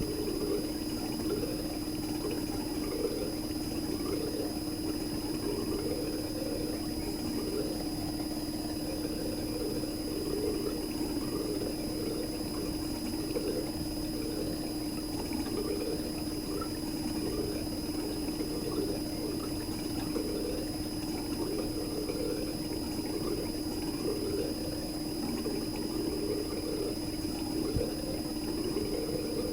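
RECHI 43W26SH single-rotary inverter compressor in a Sharp AU-J25XY air-conditioner outdoor unit, running steadily: an even hum with an uneven churning above it and a thin high whine.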